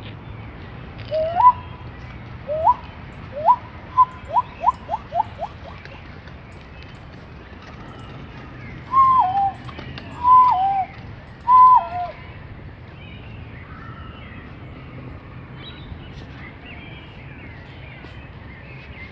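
A person imitating a bird call with whistled notes: three rising whistles, then a quick run of about five short notes, then three falling two-step whistles about a second apart.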